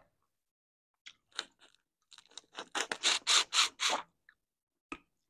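Boiled crawfish being broken apart by hand and eaten close to the microphone: a few faint clicks, then a quick run of crisp shell crackles about halfway through, and a single sharp click near the end.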